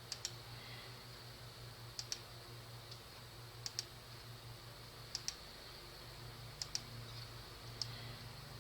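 Computer mouse clicking, mostly in quick pairs of press and release, about every one and a half seconds, with a single click near the end.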